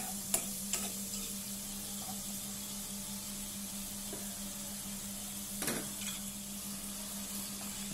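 Fish in a thick spice and onion masala sizzling in a non-stick pan, with a spatula stirring and scraping through it and a few sharp clicks of the spatula against the pan.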